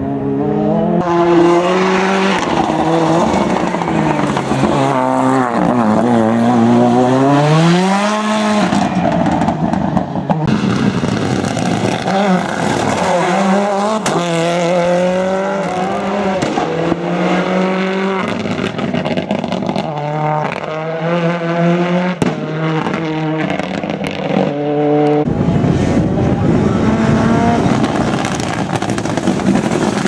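Ford Escort WRC and RS Cosworth rally cars' turbocharged four-cylinder engines driven hard. The pitch climbs through each gear and drops back at the shifts, with a deep dip and a long climb through a corner about six to eight seconds in. Near the end the sound turns to a rougher noise with no clear pitch.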